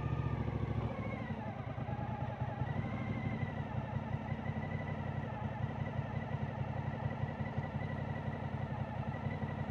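Motorcycle engine idling steadily with an even low pulsing.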